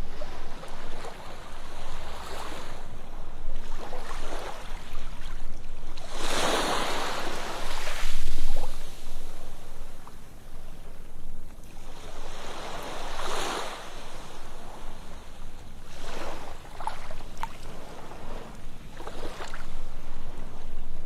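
Ocean waves breaking and washing up a sandy beach: a steady rush that swells into a surge every few seconds, the biggest about six seconds in, then falls back.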